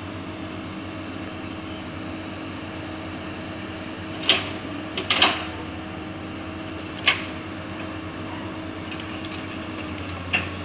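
Hydraulic excavator's diesel engine running steadily as it climbs a steep bank in reverse. A few sharp knocks stand out over it, a close pair in the middle and single ones before and after.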